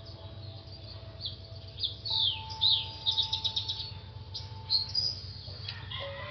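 Birds chirping: short high calls, several sliding down in pitch, and a quick run of repeated chirps about halfway through. Under them are soft held music notes that step up in pitch about two seconds in, and a low hum.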